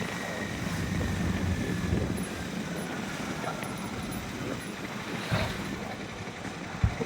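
Harley-Davidson X440's single-cylinder engine running at a steady cruise, mixed with road and traffic noise. A short thump comes near the end.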